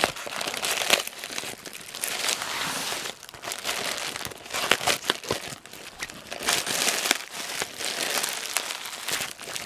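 Gray plastic mailer wrapping crinkling and rustling in irregular bursts as it is cut and torn open by hand.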